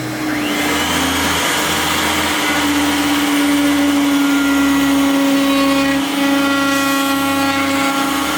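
Electric power tool motor winding up about half a second in, then running at a steady speed with a steady high whine.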